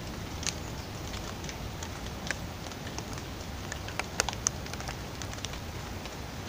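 Water drops falling from wet foliage after rain: scattered irregular sharp ticks, a few louder ones about four seconds in, over a steady low background noise.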